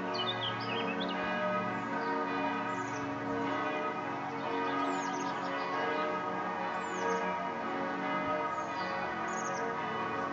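Church bells ringing steadily, many overlapping tones sounding together, with birds giving short high falling chirps over them.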